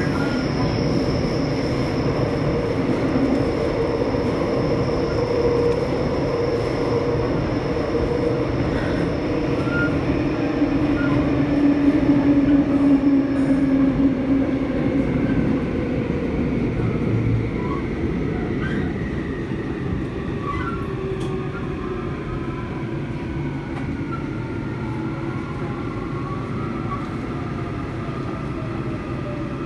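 Seoul Metro 4000-series subway train running on track, heard from inside: a steady rumble and rail noise. In the second half several whining tones glide down in pitch as the train slows, from its Toshiba IGBT VVVF traction inverter and motors under braking.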